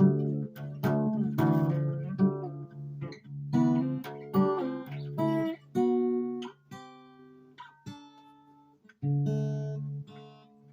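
Guitar music: plucked chords and single notes that ring and fade over a steady low note. It thins to a few quiet notes midway, then a strong chord comes in about nine seconds in.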